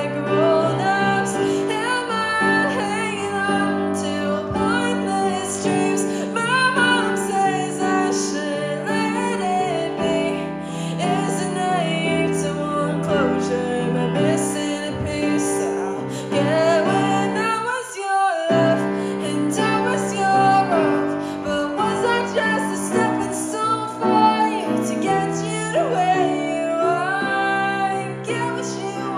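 A woman singing a ballad with piano accompaniment, her voice carrying the melody over held piano chords, with a brief break in the music about eighteen seconds in.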